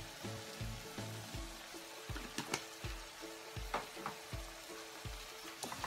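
Chopped squid, shrimp and cuttlefish in a chermoula sauce sizzling steadily in a frying pan, with a few sharp clicks. Background music with a steady low beat plays underneath.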